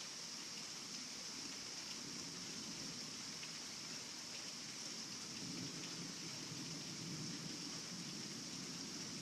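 Heavy rain pouring steadily, with a low rumble of thunder swelling about halfway through.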